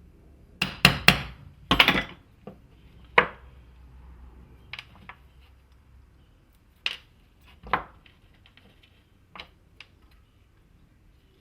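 Small metal parts of a pneumatic framing nailer's trigger valve knocking and clicking as they are handled on a workbench. A cluster of sharp knocks comes about a second in and another at about three seconds, then lighter scattered clicks follow.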